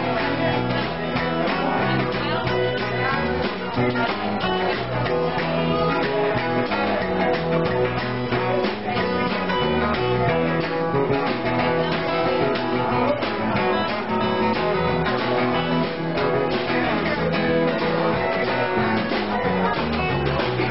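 Live band playing: an acoustic guitar strummed over a second guitar and a drum kit, amplified in a small room.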